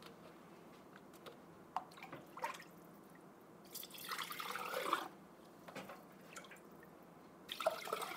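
Broth being poured into a glass canning jar: two pours, one starting nearly four seconds in and lasting about a second, another near the end, with a few light clicks between.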